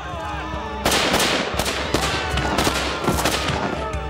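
A burst of gunfire: many shots in quick, uneven succession for about three seconds, starting about a second in, over a steady musical score.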